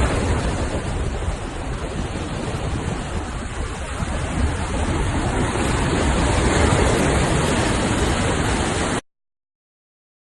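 Loud, steady rushing noise with no tones in it, heaviest in the low end, like water or wind. It cuts off abruptly about nine seconds in.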